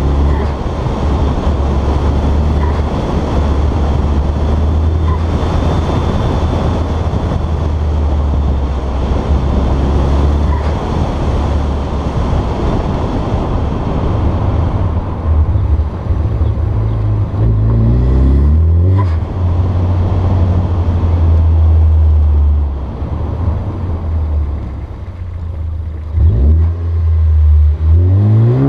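Turbocharged 2.0 L four-cylinder of a Ford Focus ST driving, heard from the hood under heavy wind and road noise. The revs climb about 17 seconds in, then a short sharp hiss follows as the Tial blow-off valve vents on lifting off. Near the end the revs rise and fall again.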